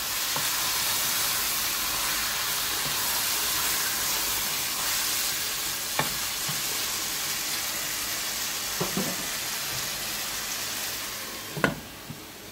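Curry chicken sizzling in a nonstick pot as it is stirred with a wooden spoon, the meat sweating in its own juices before any water goes in. A few light knocks sound against the pot, and near the end the sizzle drops as a glass lid is put on.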